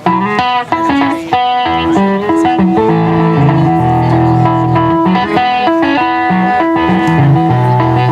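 Amplified banjo playing an instrumental intro: a melody of quick plucked notes over held low notes.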